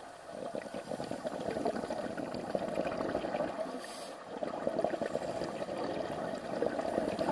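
Scuba diver breathing through a regulator underwater: a long stream of exhaled bubbles, a brief hiss of inhalation about four seconds in, then bubbling again.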